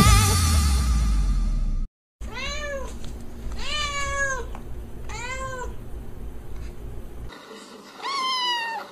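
Dance-pop music plays for about two seconds and cuts off. Then a cat meows four times, each meow rising and then falling in pitch.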